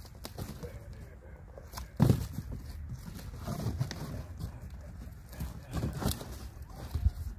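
Cardboard boxes being handled and laid into a wooden raised-bed frame: a loud thump about two seconds in as the boxes go down, then cardboard rustling and scraping with smaller knocks near the end.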